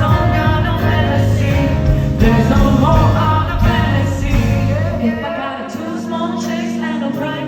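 A pop song with singing over a full backing track. The bass and drums drop out about five seconds in, leaving the voice over a thinner accompaniment.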